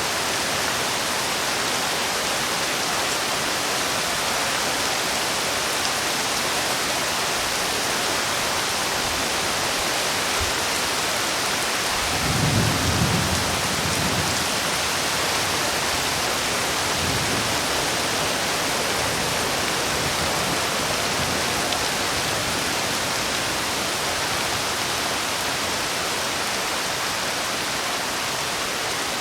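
Heavy rain falling in a steady, even hiss, with a low rumble of thunder about twelve seconds in and a fainter one a few seconds later.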